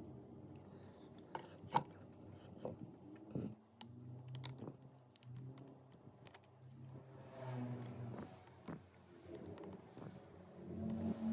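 Scattered small clicks and light metallic taps of tools and parts being handled during phone repair work, over a faint low hum that comes and goes.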